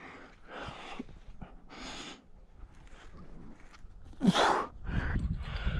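Rock climber breathing hard while pulling through hard moves: a forced breath out about every second, the loudest one a little past four seconds starting with a short grunt. A low rumble comes in near the end.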